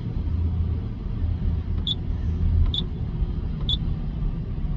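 Komatsu PC800 excavator's diesel engine running with a steady low rumble, and three short high beeps from the monitor panel's buttons as menus are stepped through, about a second apart from the middle of the stretch onward.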